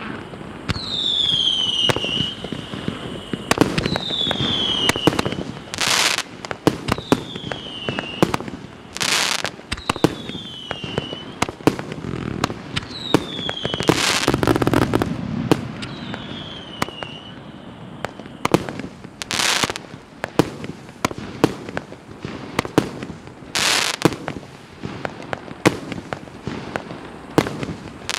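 137-shot multi-caliber consumer fireworks cake firing: a dense run of launch thumps and bursting cracks, with whistling tails that fall in pitch every few seconds through the first half. Louder bursts lasting about half a second come every few seconds.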